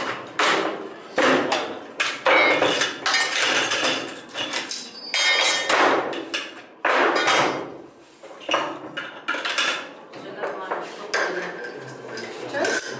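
An AK-74 assault rifle being taken apart and put back together at speed by hand: a quick, irregular run of sharp metal clacks and clicks as parts are pulled, seated and put down on a cloth-covered table.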